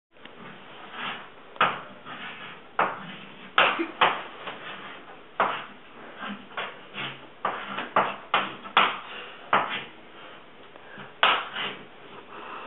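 An irregular series of sharp knocks, about fifteen over a dozen seconds, some with a brief ring after them.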